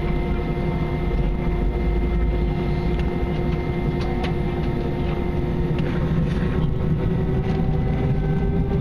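Airbus A320's jet engines heard from inside the cabin: a steady whine of several tones over a low rumble, with scattered light clicks and rattles. The tones start to rise slightly near the end.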